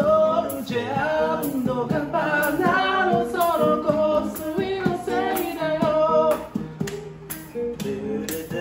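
A song sung with guitar accompaniment, over a steady tapping beat about twice a second.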